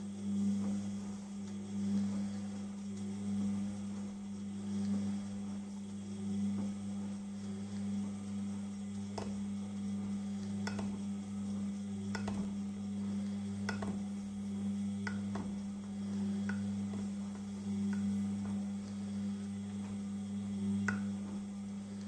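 Beko 6 kg washing machine running a wash cycle: a steady motor hum that swells about every second and a half as the drum turns, with scattered light clicks.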